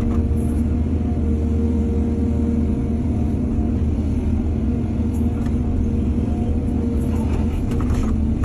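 Excavator's diesel engine running steadily under load, a deep rumble with a constant hum, and a few light knocks or clanks near the end.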